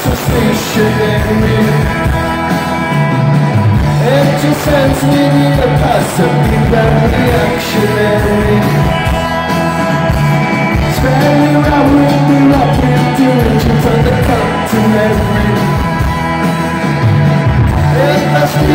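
Rock band playing live and loud: electric guitars, bass guitar and drums, with singing over the top.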